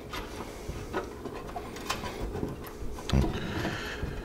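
Wire window-screen mesh rustling and crinkling as it is rolled around a socket to bend it into a curve, with scattered light clicks and a louder rustle about three seconds in.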